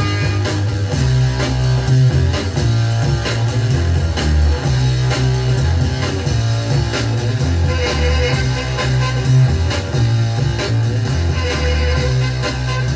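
Garage funk record playing on a turntable: electric guitar and drums over a heavy, prominent bass line.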